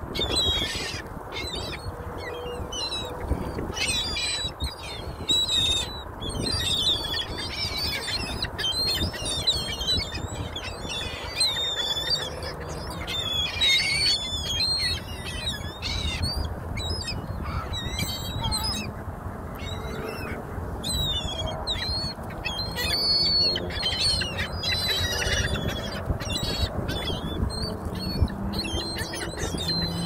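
A flock of gulls calling nonstop while being fed, many short, high, wavering cries overlapping one another.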